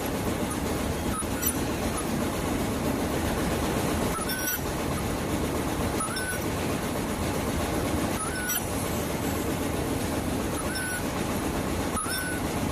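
Ultrasonic welding machine for filter banding working over a steady machine din, with a short click and a brief high chirp about every two seconds as it cycles.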